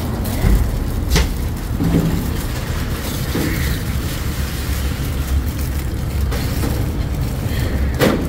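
Two sharp clinks of serving tongs and spoons against steel trays and bowls, about a second in and near the end, over a steady low rumble.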